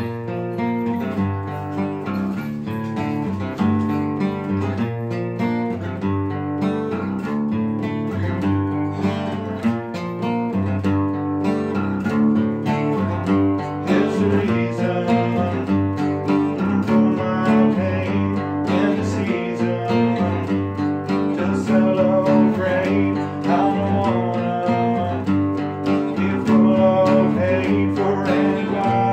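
An acoustic guitar and an acoustic bass guitar playing a rock song together, the guitar picked and strummed over a steady bass line. A man's singing voice joins the instruments about halfway through.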